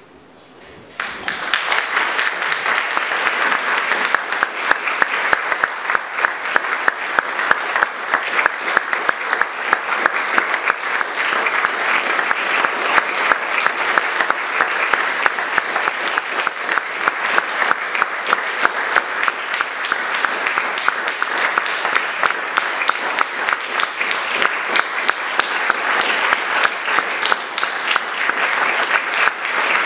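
Audience applauding, breaking out suddenly about a second in and going on steadily with many quick overlapping claps.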